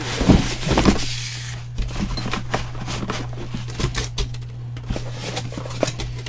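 Packaging rustling with a few heavy knocks in the first second or so, then scattered clicks and knocks as hard plastic and metal parts of a soldering station are handled and set down, over a steady low hum.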